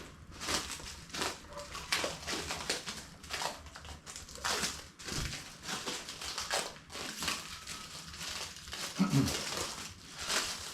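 Plastic protective film being peeled off a new acrylic windscreen, with irregular crinkling and rustling.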